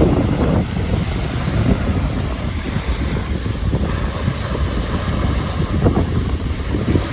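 Wind-driven waves washing onto a lakeshore, with strong wind buffeting the microphone.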